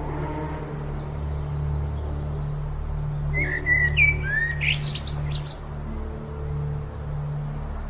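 A small bird chirping, a quick cluster of short rising and falling calls about halfway through. Underneath runs a steady low pulsing hum with soft held tones.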